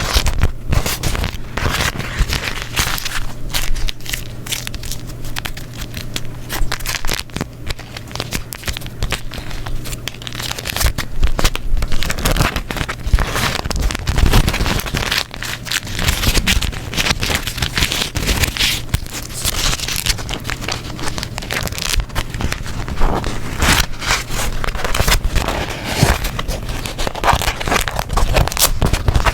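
Beeswax wrap paper being crumpled and folded, a dense, irregular crinkling and crackling with sticky peeling sounds as the waxed sheets pull apart.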